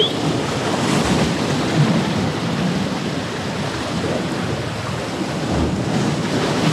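Ocean surf washing against the boulders of a rock jetty: a steady rushing noise, with wind on the microphone.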